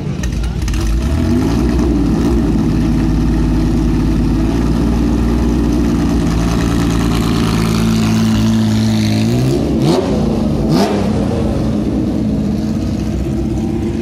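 Lancia Stratos rally car's Ferrari Dino V6 engine running at a steady speed. It is blipped up in revs about a second in and again near ten seconds, and two sharp cracks come just after the second blip.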